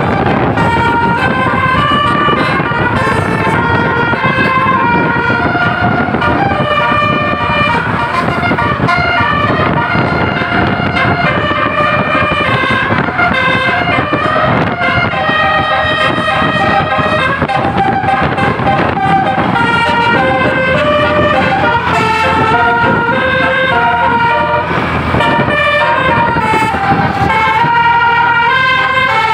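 Bus's basuri multi-tone musical air horn playing a continuous tune of held notes that step up and down, over the rumble of the engine.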